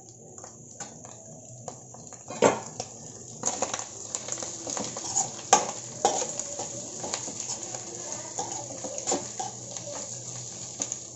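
A spatula stirring scrambled egg and chilli powder in a non-stick kadai, knocking and scraping against the pan, over a sizzle of frying in oil. The stirring sets in about two seconds in, with a few louder knocks.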